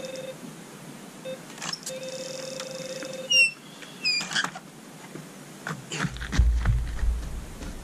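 Carp fishing bite alarm sounding a run: a steady electronic tone, on briefly at the start and again for about a second and a half in the middle, the sign of a fish taking line. Two short sharp chirps follow a second apart, and a low rumble, the loudest sound, comes near the end.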